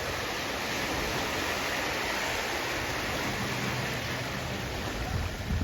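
Sea waves washing steadily on the shore, an even hiss of surf with no single breaker standing out.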